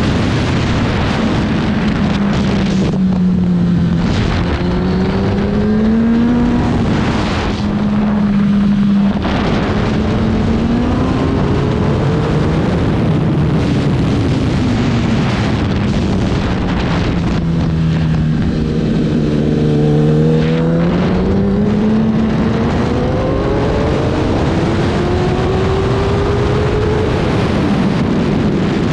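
Racing motorcycle engine at high revs on track, with heavy wind rush. The pitch climbs repeatedly as it pulls through the gears and falls back when the bike slows for corners; the longest drop comes about two-thirds of the way through.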